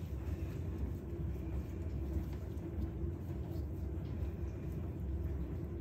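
Steady low rumble with a faint even hum running under it.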